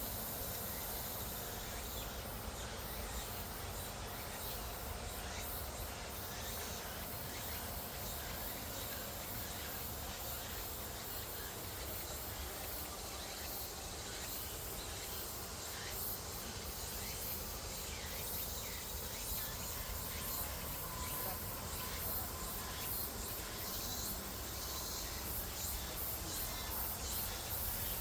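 Outdoor insects chirping in a steady chorus of short, high-pitched pulses over a low background rumble.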